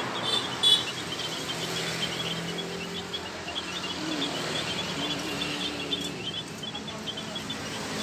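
A flock of small caged birds chirping, a steady chatter of many short high chirps over a low background hum. A brief loud crackle sounds about half a second in.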